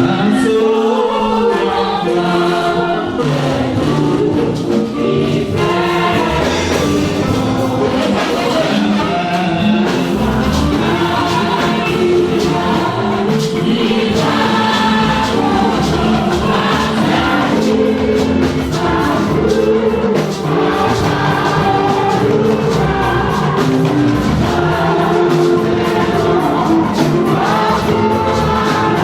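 A choir singing gospel music over an instrumental accompaniment with a steady beat.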